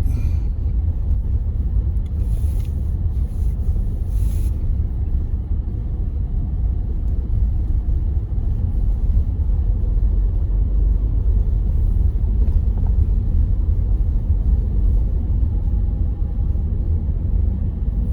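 Steady low rumble of a car's cabin while driving on a snowy road, with a couple of short high hissing sweeps in the first few seconds.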